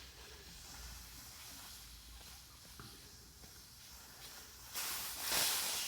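Air hissing out of an e-scooter tire's tube through the valve stem as the valve core is unscrewed, faint at first, then a loud rush of escaping air near the end.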